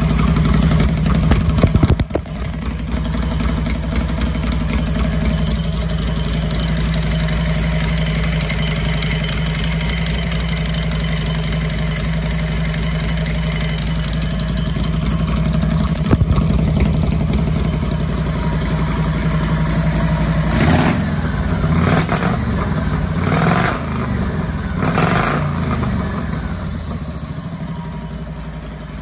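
1955 Harley-Davidson Panhead V-twin, with ported heads and an Andrews cam, running on its first heat cycle after a full rebuild. It idles steadily, then is blipped four times about three quarters of the way in before settling back to idle.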